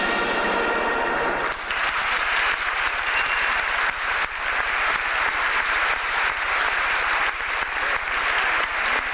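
The last of a concert band's final chord dies away, and about a second and a half in an audience breaks into steady applause.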